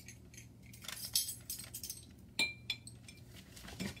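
A spoon clinking and scraping against a jar while coconut oil is measured out by the tablespoon: a few light taps, with one sharp ringing clink about two and a half seconds in.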